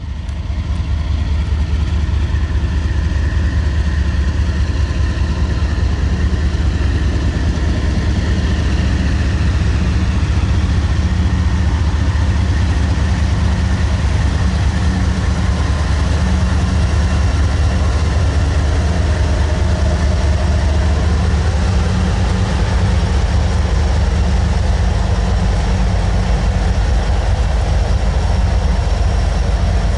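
Diesel-electric locomotives of a Norfolk Southern intermodal freight train passing close by, their engines running with a loud, steady low drone.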